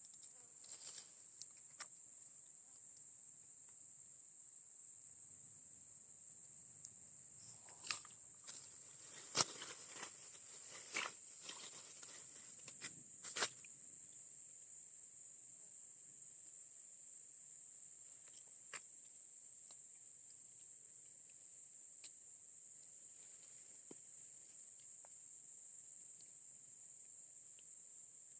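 Steady high-pitched drone of insects, with a few sharp clicks and knocks in a cluster partway through.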